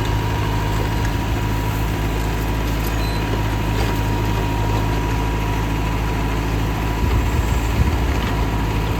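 Tractor diesel engine running steadily at idle, with a brief, slightly louder surge about seven seconds in.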